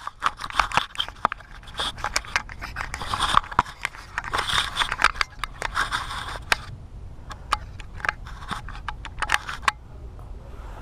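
Handling and footstep noise: a dense run of sharp clicks, crunches and scrapes, as of someone moving over dry leaves and brush while setting a chainsaw down, thinning out to scattered clicks after about six and a half seconds.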